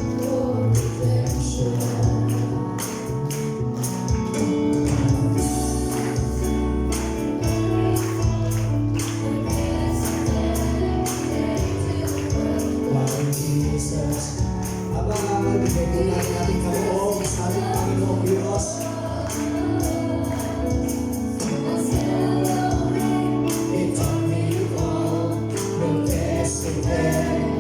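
Congregation singing a gospel hymn together, with a steadily shaken and struck tambourine and instrumental accompaniment keeping a regular beat.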